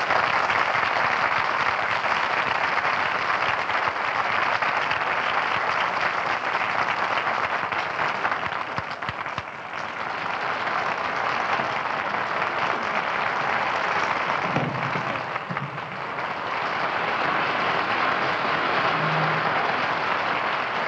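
Audience applause right after a song ends: long, sustained clapping that dips briefly about halfway through and again later, then swells back.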